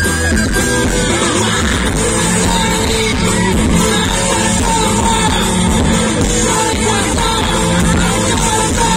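Live rock band playing loud, continuous music with a singer.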